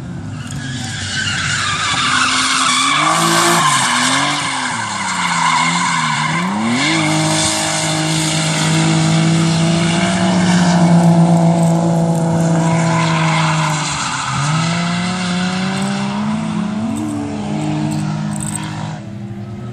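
Drift car's engine revving up and down through a slide, held at high revs for several seconds in the middle, dropping about 14 seconds in and then climbing again, with tyres screeching against the tarmac.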